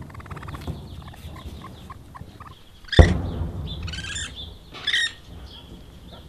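Young raccoons chirping, with two short high squeals about a second apart. A sudden loud thump comes about three seconds in.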